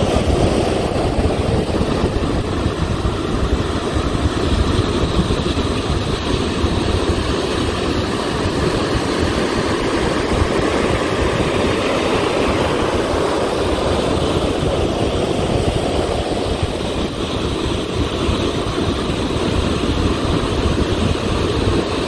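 Wind blowing on the microphone over the steady rush of breaking ocean surf.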